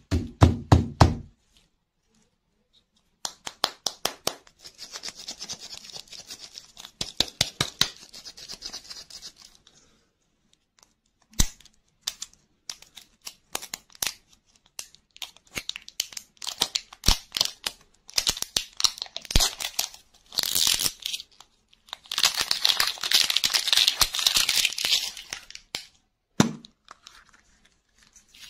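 Plastic wrap and foil being peeled and torn by hand off a round toy-capsule lollipop: bursts of crinkling and crackling with rapid clicks, and a longer stretch of dense crinkling near the end. A few soft thumps come from the capsules being handled, at the start and again near the end.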